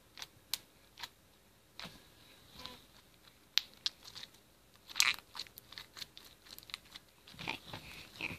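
Lavender fluffy slime squeezed and worked in the hands, giving scattered sticky clicks and pops, loudest in a cluster about five seconds in.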